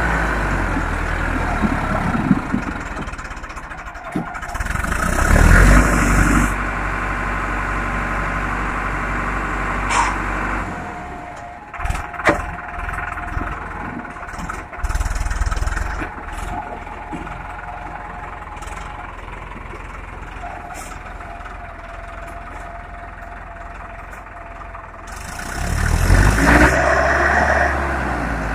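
Sonalika tractor's diesel engine labouring over a steep rocky track, revving up hard about five seconds in and again near the end, running lower in between, with a few short knocks around the middle.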